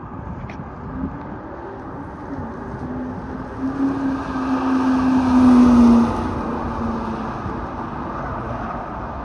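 A 1999 Ford Mustang SVT Cobra's 4.6-litre V8 pulling hard through an autocross course. The engine note builds to its loudest about five to six seconds in, then drops off as the car moves away.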